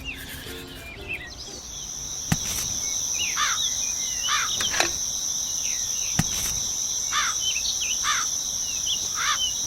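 A steady high insect trill like a cricket chorus, with short falling bird chirps repeating about once a second. Three sharp clicks stand out.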